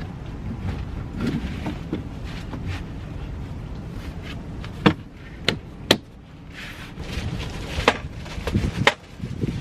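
Folding high-back camp chair being put together: its fabric seat rustling as it is stretched over the frame, with several sharp clicks and knocks as the frame and seat are handled and things are set down on a folding table, over a steady low background rumble.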